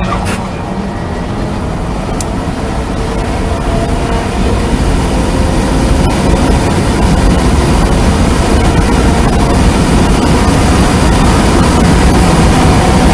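Cabin sound of a Tesla Model 3 electric car accelerating hard at full throttle: wind and tyre noise growing steadily louder as speed climbs from about 50 to 120 mph, with a faint electric motor whine slowly rising in pitch.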